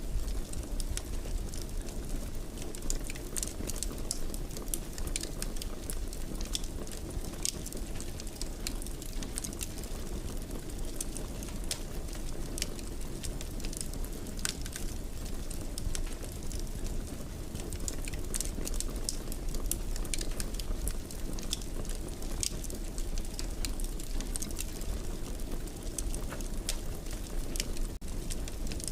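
Fireplace fire crackling, with frequent irregular sharp pops and snaps over a steady low rumble of burning.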